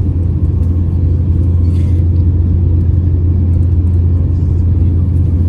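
Steady low rumble of airliner cabin noise in flight: jet engines and rushing air heard from inside the passenger cabin, with a faint constant hum above it.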